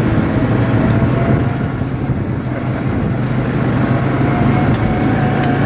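ATV engine running steadily under way, a steady low drone with a faint higher whine.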